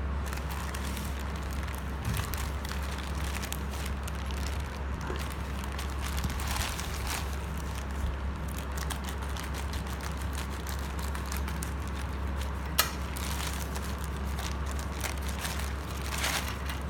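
Phone packaging being handled and rustled, with irregular crinkling and crackling and one sharp click about two-thirds of the way through, over a steady low hum.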